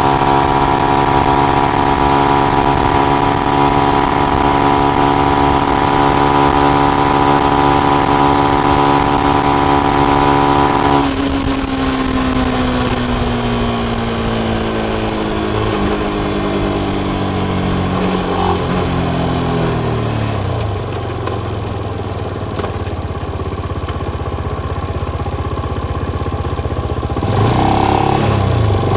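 Benelli BN125's single-cylinder 125 cc four-stroke engine through its stock exhaust with the dB killer fitted. It holds steady revs for about eleven seconds, then the throttle closes and the revs fall gradually for about ten seconds. It runs low for a few seconds and picks up again near the end.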